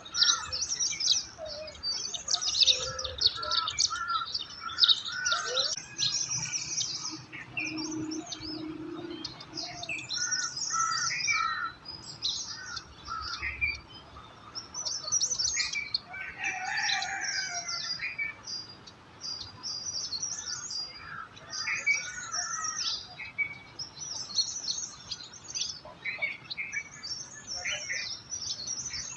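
Several songbirds chirping and calling at once: a dense, overlapping chorus of short high chirps and trills, with a few lower calls mixed in.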